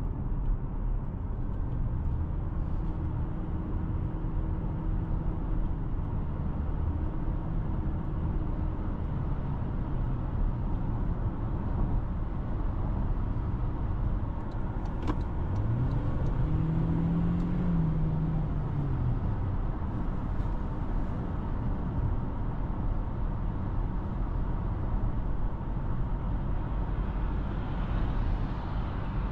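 Steady low road and engine rumble of a Toyota Corolla Cross being driven. About halfway through, a tone rises and then falls back over a few seconds.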